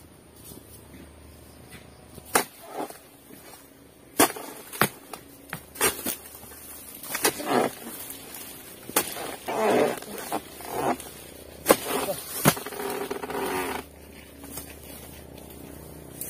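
Oil palm harvesting chisel (dodos) on a long pole chopping into the frond bases of a low oil palm: a series of sharp, separate chopping strikes, with a few longer rustling swishes of palm fronds in the middle and later part.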